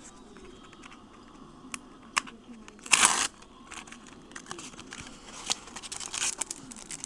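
Foil trading-card pack wrapper crinkling as it is handled and torn open, with one loud tear about three seconds in and more crinkling near the end.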